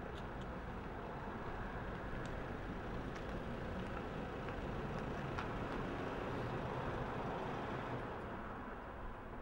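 Hyundai SUV engine running and tyres rolling on the road as it approaches, growing louder as it draws near and easing off near the end as it pulls up.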